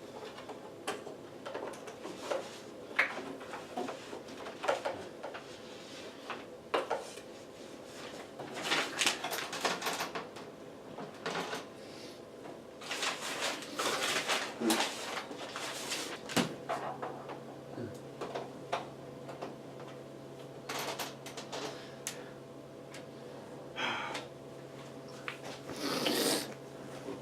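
Irregular clicks, knocks and rustling from handling computer parts and cables. A steady low hum starts about two-thirds of the way through.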